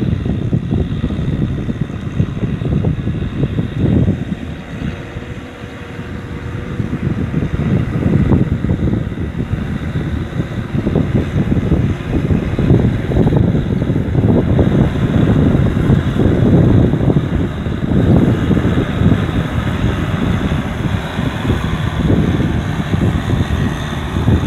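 Kubota M6040SU tractor's diesel engine running steadily as it cultivates a flooded rice paddy, growing somewhat louder as it draws closer, with uneven wind rumble on the microphone.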